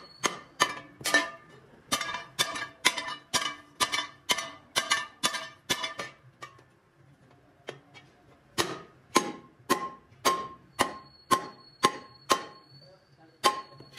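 Hand hammer striking a steel wheel disc and rim, each blow a sharp metallic clang that rings on. The blows come steadily, about two to three a second, stop for about two seconds midway, then carry on, with one last strike near the end.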